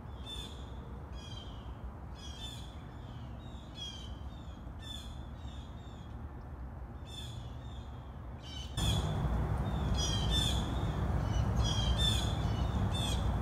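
Birds calling: short, harsh calls come several in a quick run, repeating about every second. About nine seconds in, a louder steady background hiss and rumble comes in under them.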